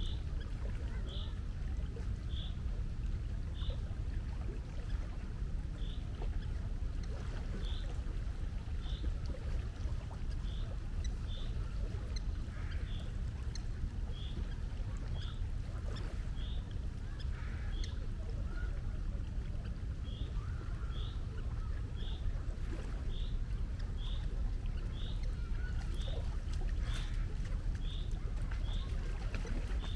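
Sea water running steadily as a low rumble, with a short high chirp repeating about once a second and a few fainter calls in the middle.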